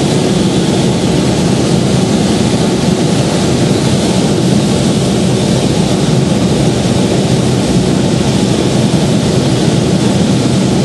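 Steady drone of an aeroplane's engine in flight, heard from on board.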